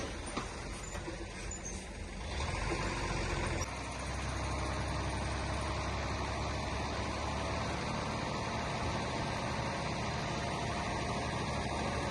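Heavy diesel earthmoving machinery running, a steady low engine rumble with an abrupt change in the sound about four seconds in.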